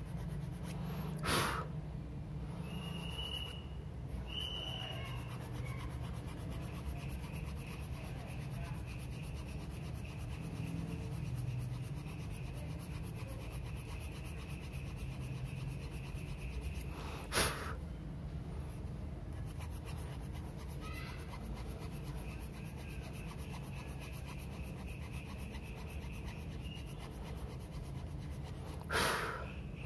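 Faint rubbing of a small hand file on a plastic action-figure joint part, over a steady low hum, with three short sharp sounds near the start, midway and near the end.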